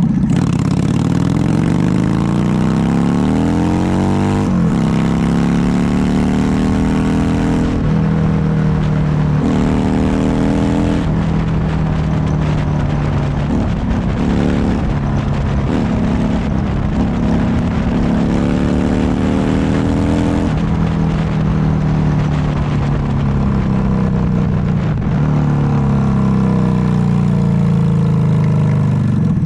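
Motorcycle engine accelerating through the gears: the pitch climbs, then drops sharply at each upshift, several times in the first ten seconds or so. After that it runs more steadily and eases off with falling pitch near the end, with wind noise throughout.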